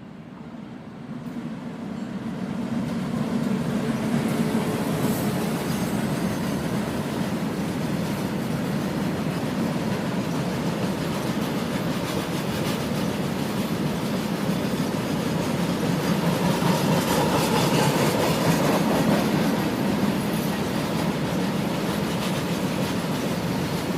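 Freight train of tank wagons rolling past on the track, a steady rumble and rattle of wheels on rails that swells over the first few seconds and then holds steady.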